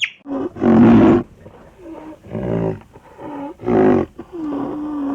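A large animal calling over and over: a run of about five loud, pitched calls, some bending up or down in pitch, the last one held longer.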